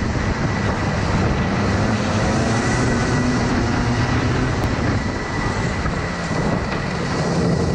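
Racing kart engines running hard as a pack accelerates through the opening corners, heard from on board a kart: a dense mechanical racket with engine pitches rising and falling.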